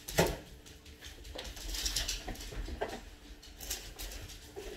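A pet dog making a few short, soft sounds, spaced about a second apart.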